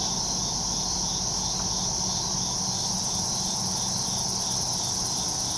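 Evening insect chorus of crickets: a steady high trill with a slower repeating chirp beneath it. A second, faster-pulsing insect joins about two and a half seconds in.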